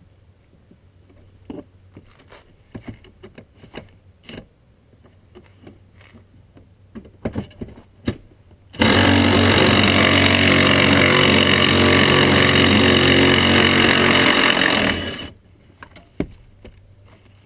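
Kobalt cordless impact wrench hammering continuously on a stubborn seat bolt for about six seconds, then stopping, as it works the bolt loose. Before it come scattered small clicks and knocks of the tool and socket being handled.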